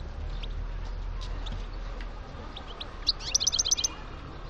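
European goldfinch of the North African race parva singing: scattered short high chirps, then about three seconds in a quick bright trill of some eight notes, the loudest part.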